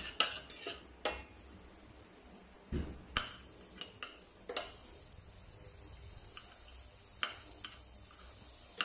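Metal tongs clinking and scraping against a stainless steel pot as French beans are tossed in melted butter, in irregular clicks with a faint sizzle underneath.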